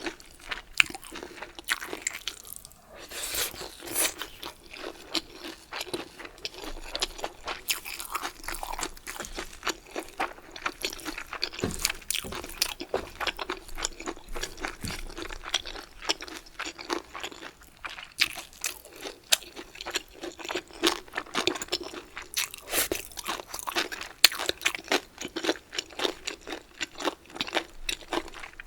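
Close-miked eating: chewing and biting crunchy bamboo shoots, with dense, irregular crisp crunches all the way through.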